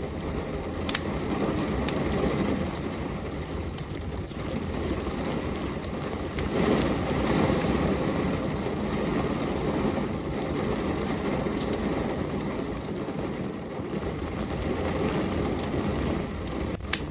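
Steady rain with the occasional crackle of a burning fireplace; the rain swells louder about six seconds in.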